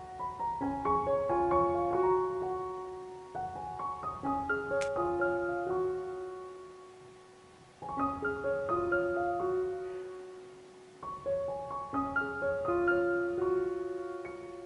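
Background piano music: a slow, gentle solo piano piece of ringing notes in short phrases, fading between phrases twice.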